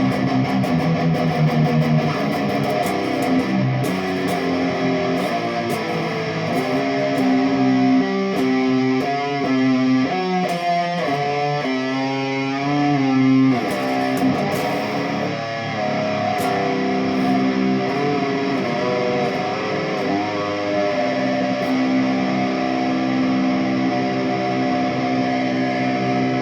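Jackson Dinky electric guitar with a 103J (0.01 µF) capacitor on its tone knob, being jammed on: sustained notes and chords, with a quicker, wavering lead passage in the middle.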